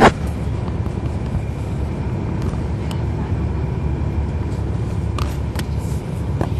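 Cummins ISL9 inline-six diesel of a 2011 NABI 40-SFW transit bus, heard from on board, running at a steady note: a low rumble with a faint steady whine above it. A sharp knock right at the start and a few faint clicks later.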